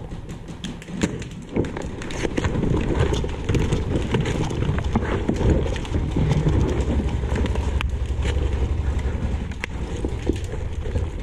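Ghillie suit strands scraping and rustling against the head-mounted camera, with shuffling and crunching on rubble, and scattered sharp clicks and knocks throughout. A heavy low rumble from the suit rubbing on the microphone swells in the middle.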